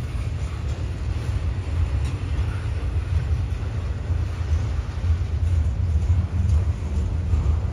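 Double-stack intermodal freight train rolling past at close range: a steady low rumble of the passing cars, with a few faint clicks.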